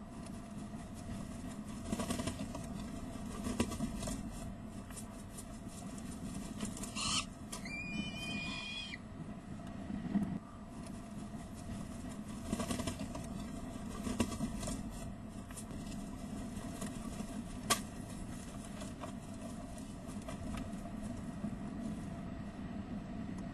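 Young peregrine falcons flapping their wings and scrabbling on the nest-box gravel: scattered scuffs and clicks over a steady low hum.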